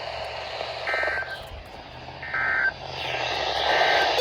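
Emergency Alert System end-of-message data bursts over NOAA Weather Radio: three short, buzzy digital chirps about a second and a half apart, the last one fainter, marking the end of the alert message.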